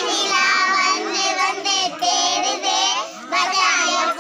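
A group of young girls singing a Tamil song together, with a short break between lines about three seconds in.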